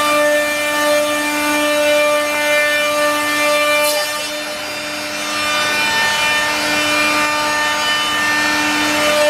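Multi-head CNC router with six spindles running together, their bits cutting grooves into a wooden panel: a steady whine of several tones over the noise of the cut. The whine dips briefly near the middle and then comes back.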